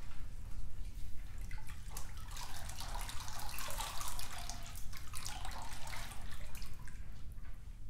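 Water played as a percussion instrument by several players: irregular drips, trickles and light splashes, growing denser in the middle.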